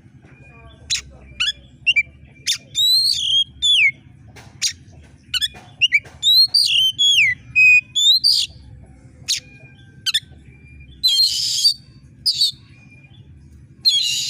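Oriental magpie-robin (kacer) in full song: sharp, high whistled notes and quick falling, sweeping phrases, broken by a few harsh rasping calls near the end.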